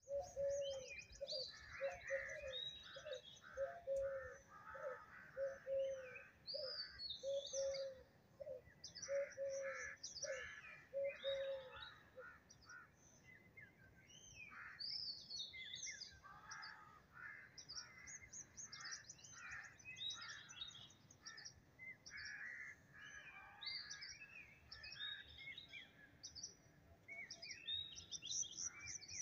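A chorus of many birds chirping and trilling, with a low call repeated about twice a second that stops about twelve seconds in.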